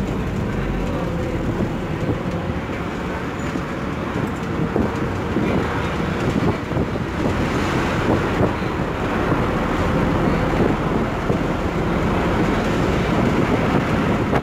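Scania K280UB city bus running on compressed natural gas, heard from inside the passenger saloon while under way: steady engine and road noise with many small knocks. The noise gets somewhat louder about halfway through.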